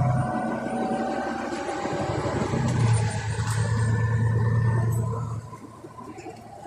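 Volvo B9TL double-decker bus heard from inside the passenger saloon while under way. The diesel engine drones low under a slowly rising drivetrain whine as it accelerates, and the engine note drops away about five seconds in as it comes off the throttle.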